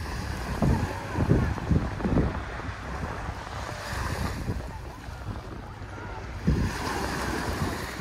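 Small waves washing up onto a sandy beach, the hiss of the surf swelling about halfway through and again near the end, with wind buffeting the microphone in low gusts.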